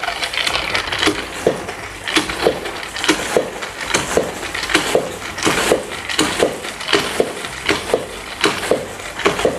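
Spin mop turning in the plastic spinner basket of its bucket as the handle is pumped down about twice a second, a repeated clattering whirr with each stroke as the wet mop head is spun dry.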